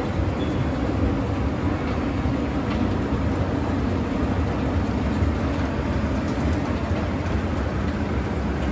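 Escalator running, heard from the moving steps: a steady, low mechanical noise from the steps and drive.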